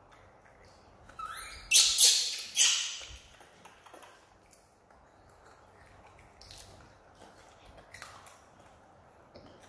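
Baby macaque screaming: a short rising squeal, then two loud, harsh shrieks about two seconds in, with a few fainter squeaks later.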